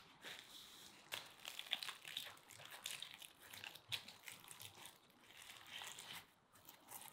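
Crisp, deep-fried cheburek pastry crackling and crunching as it is torn apart by hand, in many quick sharp crackles.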